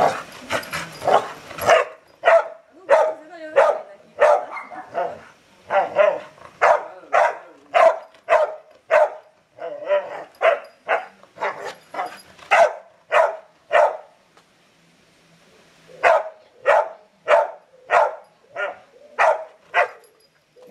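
Pit bull barking again and again up at a pine branch, sharp barks about one to two a second, with a break of about two seconds just past the middle and small whines between some barks.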